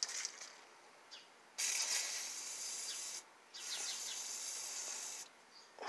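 Aerosol can of Liquid Wrench penetrating oil hissing in two spray bursts of about two seconds each, with a short pause between. The oil is being sprayed through the straw onto a rusted power steering return line fitting to loosen it.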